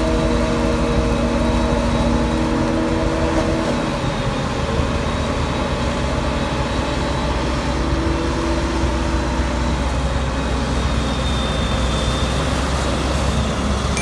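Claas Jaguar self-propelled forage harvester working: its diesel engine and cutterhead running steadily at full load while chopping standing silage corn and blowing it into a truck. A pitched hum sits over the steady rumble and drops away about four seconds in.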